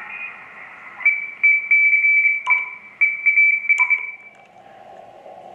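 Morse code (CW) signal received on an Icom IC-7000 HF transceiver on the 20 m band: a single high tone keyed on and off in dots and dashes, stopping near the middle. Two short beeps with clicks come from the radio's controls as it is switched over, and steady band hiss follows.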